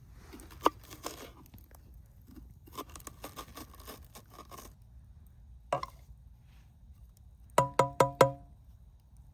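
A knife crunching through fresh peppers in short bursts of cutting. Near the end come four quick, loud, ringing knocks with a clear pitch.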